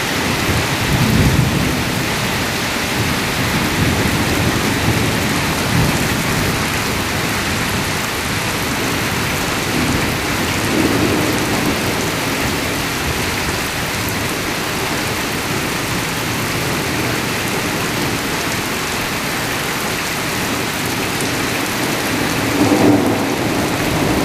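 Heavy rain pouring down steadily in a thunderstorm, with a few low rumbles of thunder swelling over it.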